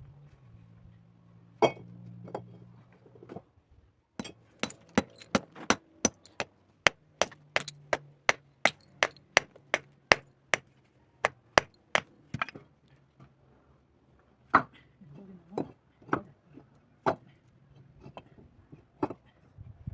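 Hard clinking strikes: two at first, then a fast run of about three a second lasting some eight seconds, then a few scattered strikes near the end.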